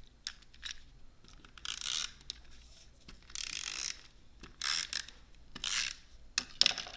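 Handheld adhesive tape runner drawn across cardstock in four short scratchy strokes, with a few sharp clicks near the end as paper is handled.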